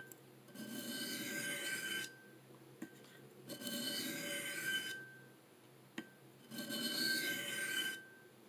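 A CPM M4 steel knife edge scraping across a 600-grit DMT diamond bench stone in three slow sharpening strokes, with a faint ringing tone under each stroke.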